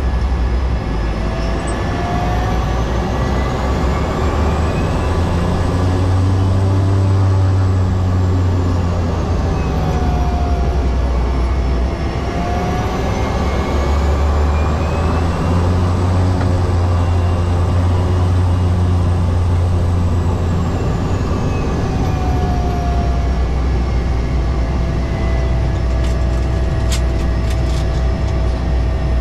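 Cessna 208B Caravan's Pratt & Whitney PT6A turboprop engine and propeller running with a steady loud drone. A few high whining tones slowly rise and fall over it, and a few faint clicks come near the end.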